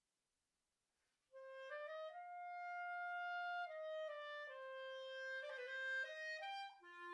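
Solo clarinet playing an orchestral part unaccompanied. After about a second of silence, a phrase climbs to a long held note, steps down through shorter notes with a quick run, and drops to a low note near the end.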